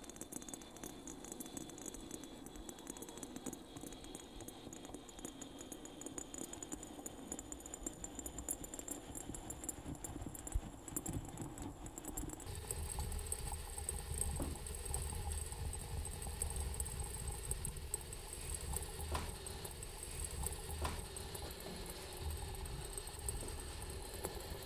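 Water heating in the glass lower bulb of a syphon coffee maker over an alcohol lamp, with a fine rattling crackle of small bubbles. About halfway it changes abruptly to a low rumble with a few faint clicks as the brew bubbles.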